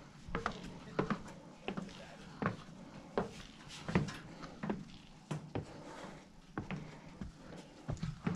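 Footsteps climbing the wooden stair treads of a steel fire tower: shoes knocking on the boards in a steady rhythm, about one step every two-thirds of a second.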